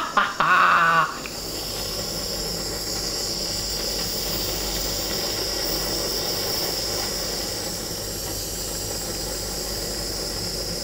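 Handheld kitchen blowtorch burning with a steady hiss as its flame caramelises sugar on a custard; the hiss starts about a second in, after a short laugh.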